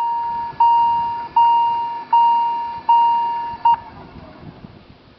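Railway level-crossing warning bell ringing, one clear single-pitched ring about every three quarters of a second, each fading before the next, then stopping after a short last ring about four seconds in.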